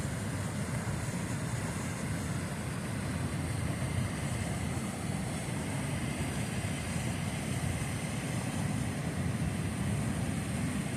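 Steady low rush of a fast-flowing river's churning current.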